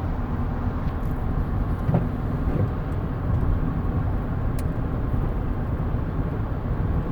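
Road and engine noise heard from inside a moving car: a steady low rumble.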